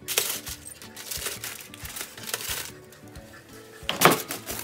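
Background music, with crinkly rustling and clicks of aluminium foil being handled; the loudest crinkle comes about four seconds in.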